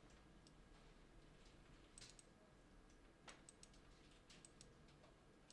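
Near silence: a low room hum with a few faint, scattered clicks at the computer.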